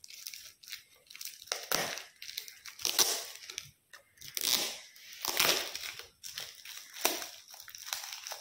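Gift wrapping paper being crumpled and torn open by hand, in irregular bursts of crinkling and ripping.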